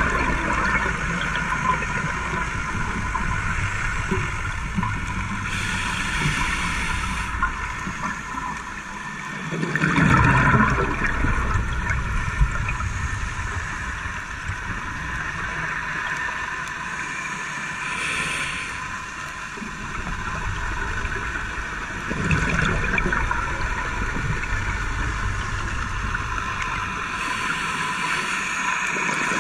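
Scuba diver breathing through a regulator underwater over steady underwater noise. Three slow breaths, each a short hiss on the inhale followed a few seconds later by a louder gurgle of exhaled bubbles.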